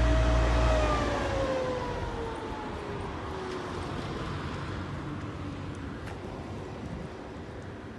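A train that has just gone past the platform, moving away: its heavy rumble drops off about a second in, and its whine slides down in pitch and fades over the next few seconds.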